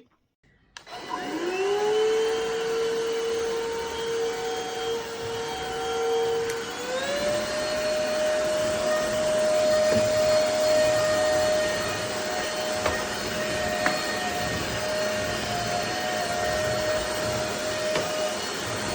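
Stanew cordless stick vacuum's motor spinning up with a rising whine, then running steadily. About seven seconds in it steps up to a higher-pitched whine as it is switched from the normal to the stronger suction mode.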